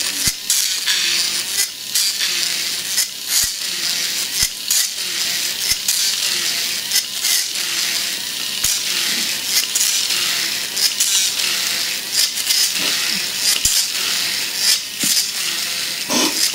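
Small electric motors of a homemade robot cockroach whirring steadily, with irregular clicks and clatter as its plastic legs strike and scrape the floor.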